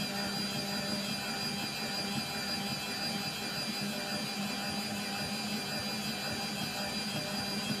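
Electric stand mixer running steadily, its dough hook kneading a wet focaccia dough in a steel bowl; a constant motor hum with a high whine over it, played back at double speed.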